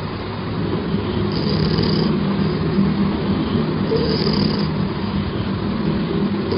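Loud, steady snoring: a low, droning snore, with a hissing breath about every two and a half seconds.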